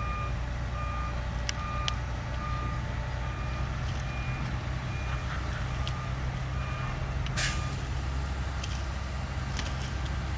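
Heavy diesel dump truck running with its reversing alarm beeping a little more than once a second while it backs up. The beeps stop about seven seconds in with a short hiss of air, typical of the air brakes being set as the truck halts.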